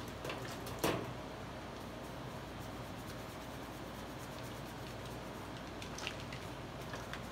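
A paintbrush working wet plaster of Paris onto a cloth-covered sculpture, with soft dabbing sounds and a few light clicks. A sharper knock comes about a second in, just as the brush comes out of the plaster bucket. A steady low hum runs underneath.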